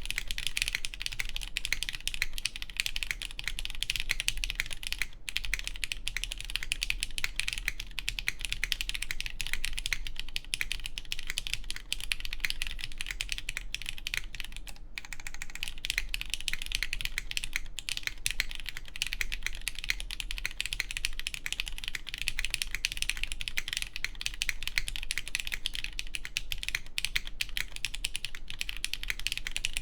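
Continuous fast typing on a plateless Keycult Zero mechanical keyboard with lubed Cherry MX Black Clear Top linear switches and GMK keycaps: a dense stream of keystroke clacks, with a brief pause about halfway through.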